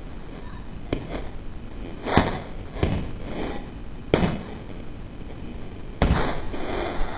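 Footbag play on a concrete sidewalk: a handful of sudden scuffs and pats from the kicks and shoes on the pavement, one every second or so, with a longer scuffing burst about six seconds in.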